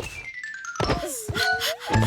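Cartoon sound effects: a high whistle-like tone sliding down in pitch, a knock, then a cartoon character's long wavering moan.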